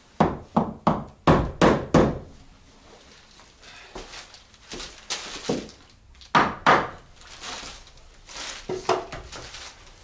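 Hammer blows on wooden boards: six sharp strikes in quick succession, about three a second, then quieter handling noise and two more knocks about six and a half seconds in.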